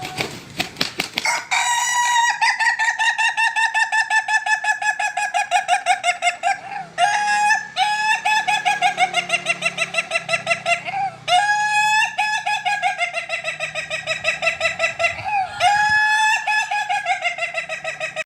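A bird calling in four long phrases of rapid, evenly pulsed notes, about six a second, each phrase lasting several seconds with brief breaks between.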